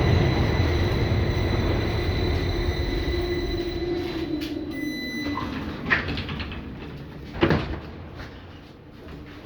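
LVS-2009 tram slowing to a stop: the running noise and the drive's steady whine fade away with a hum that falls in pitch. Then two sharp clunks, about six and seven and a half seconds in, as the doors work.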